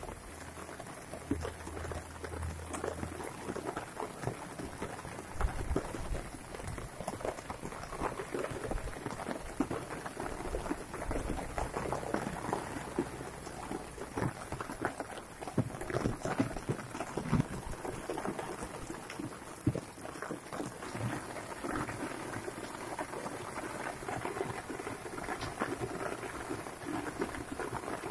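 Rain falling: a steady, dense patter of drops on wet ground and surfaces.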